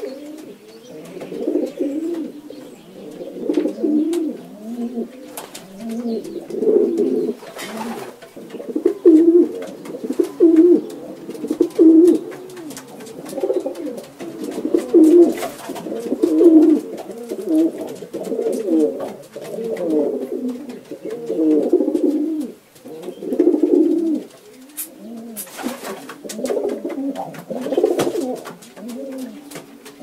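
Several domestic pigeons (rock doves) cooing, their low rolling coos overlapping almost without a break. A few brief sharp noises stand out, about eight seconds in and again near the end.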